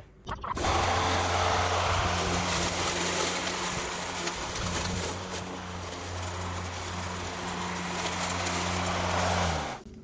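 Mowrator 21-inch electric remote-controlled battery mower running, its bar blade cutting overgrown grass at the highest height setting with the catcher on: a steady hum under a rushing noise. The sound starts about half a second in and cuts off suddenly near the end.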